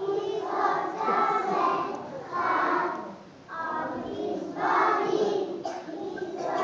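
Children's choir singing together, with a short break between phrases a little past halfway through.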